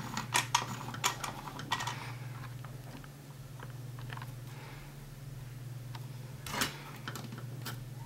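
Light clicks and knocks from handling a digital microscope as it is moved closer and refocused: several in the first two seconds and a louder one a little past the middle. Under them runs a steady low electrical hum.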